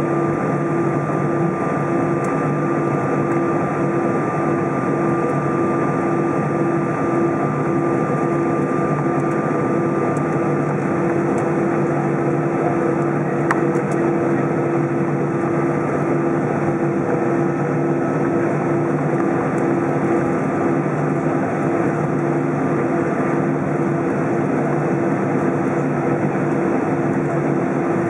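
Airbus A320 jet engines at taxi idle heard from inside the passenger cabin: a steady hum with a thin high whine over it.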